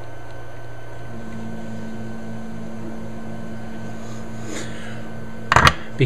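Steady low hum, with a second steady tone joining about a second in; two sharp clicks near the end.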